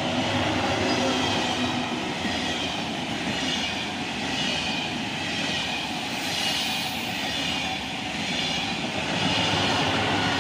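TGV Duplex high-speed train passing close at speed: a loud, steady rush of wheel and air noise that swells and eases every second or so as its cars and bogies go by, loudest at the start and again near the end.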